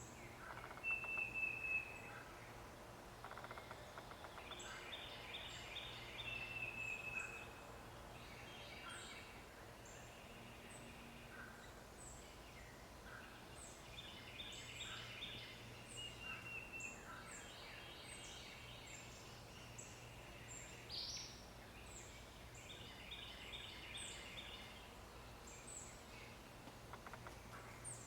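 Birds chirping and singing: many short high chirps and some clear whistled notes, over a faint steady low hum.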